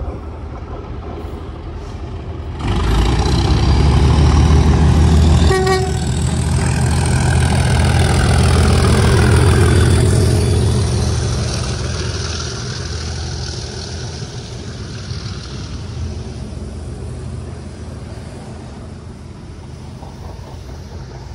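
English Electric V12 diesel engine of a Class 37 locomotive passing close by, its deep rumble jumping up sharply about three seconds in, with a brief horn toot a couple of seconds later. The hauled coaches then roll past and the sound slowly fades.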